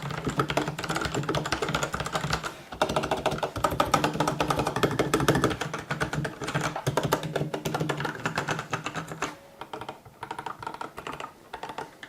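Fast typing on a uRage Exodus 900 mechanical keyboard with tactile Outemu Brown switches: a dense run of key presses, with a short pause about two and a half seconds in and sparser, quieter keystrokes for the last few seconds.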